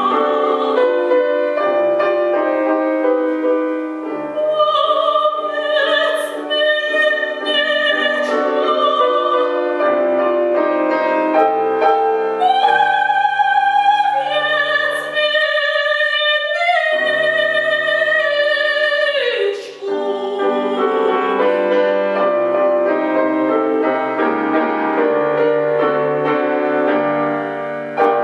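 Soprano singing an opera aria with piano accompaniment: long held notes with vibrato, and a sung line that slides downward about two-thirds of the way through.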